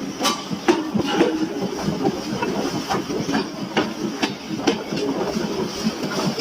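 Hammer blows striking hot steel during forging, about two sharp strikes a second, slightly uneven, over a steady background noise.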